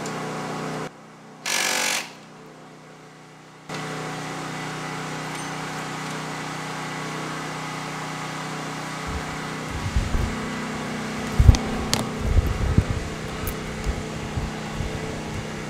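Steady shop fan hum. About a second and a half in, a Snap-on cordless impact wrench gives a half-second burst, run down on a clutch pressure-plate bolt. From about nine seconds in come a series of knocks and clunks, the loudest near eleven and a half seconds.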